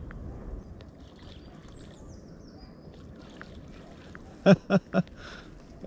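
Low, steady outdoor background noise, then about four and a half seconds in a man's voice gives three short, loud sounds in quick succession.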